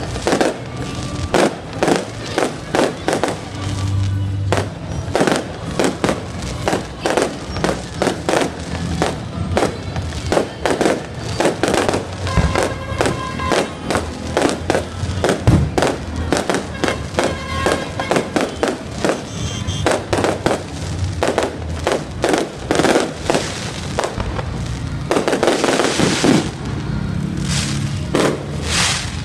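Aerial fireworks going off in a quick run of bangs and crackles, two or three reports a second, with a denser crackling spell near the end. Music plays underneath.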